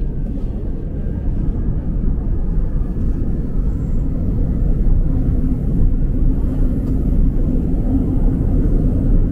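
Seoul subway train running: a steady low rumble that grows a little louder from about halfway through, with a faint hum joining it in the second half.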